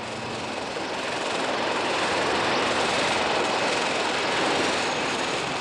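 Westland Navy Lynx helicopter in flight: a steady rush of rotor and turbine noise with a faint high whine, swelling over the first couple of seconds and then holding.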